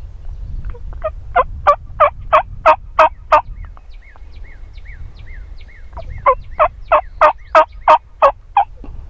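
Wingbone turkey call yelping like a hen: two loud runs of about eight evenly spaced yelps each, roughly three a second, with a pause of a few seconds between them.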